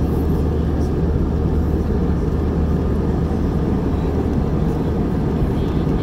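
Steady cabin noise of an Airbus A320-233 in flight, heard from a window seat: a constant low drone from its IAE V2500 turbofan engines and the airflow over the fuselage.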